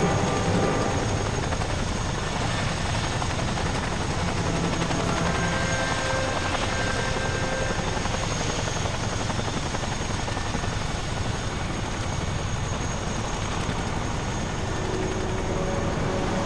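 RAF helicopters running: a steady rotor and turbine-engine noise with a high, even whine over it.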